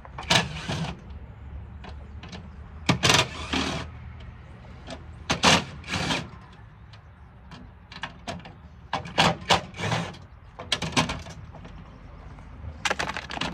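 Cordless drill/driver with a 1/4-inch nut driver, run in short bursts about eight times to back out the fasteners holding a light fixture's glass panels.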